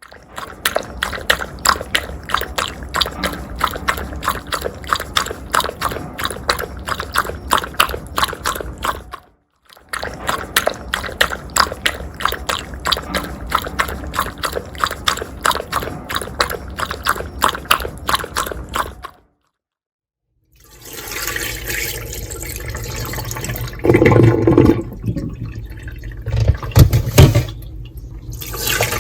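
A rapid patter of water drips or splashes, played twice in two stretches of about nine seconds each. After a short silence, a toilet flushes, with loud surges of rushing water.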